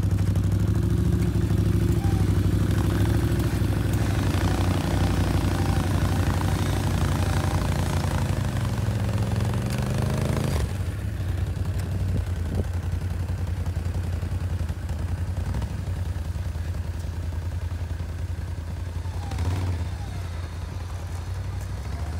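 ATV engine running under throttle while the machine is worked out of deep snow. It is louder for the first ten seconds or so, then drops suddenly to a quieter, steadier running note.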